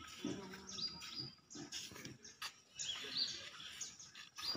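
Birds chirping repeatedly in short, high, sliding calls, with faint voices of people in the background.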